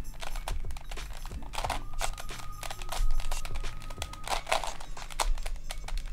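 Plastic puzzle sphere, a replica of the level-5 Marusenko sphere, being twisted by hand through a sequence of turns: its pieces click and scrape as the layers rotate.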